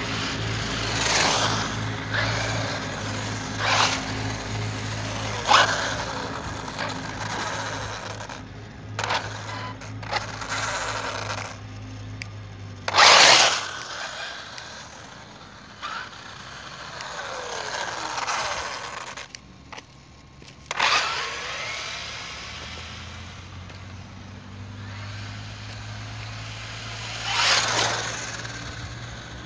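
Electric 1/8-scale RC buggy (Serpent Cobra Sport-BE) making repeated high-speed passes on paving: motor whine and tyre noise swell and fall in pitch as it goes by, about seven times, the loudest pass about 13 seconds in.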